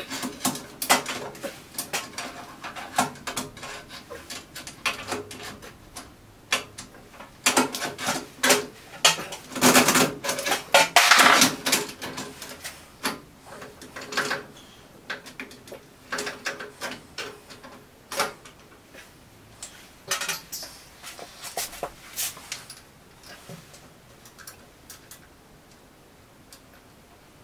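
Irregular metallic clinks, knocks and scrapes as the steel lead screw and drive rod of an EMCO V10-P lathe are handled and fed back through the apron. The knocking is busiest and loudest about a third of the way in, then thins out to sparse light taps.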